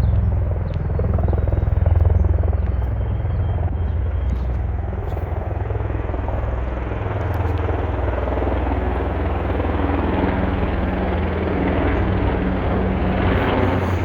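Sikorsky UH-60 Black Hawk helicopters flying over: a continuous low rotor thump under a rushing engine and rotor noise, growing brighter and a little louder near the end.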